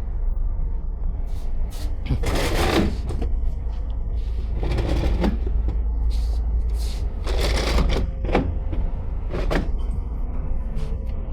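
Cruise ship public-area ambience: a steady low rumble with several short rushes of noise, each lasting about a second, and a few faint clicks.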